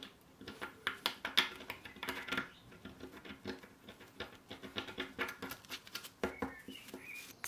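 Thin metal pick scraping crusted dirt and corrosion off a small metal steering-lock part: an irregular run of quick scratches and small clicks.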